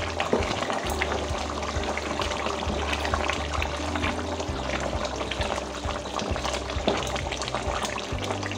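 Thick chicken curry simmering in a steel pot as it is stirred, with soft bubbling and many small clicks, over background music with held bass notes.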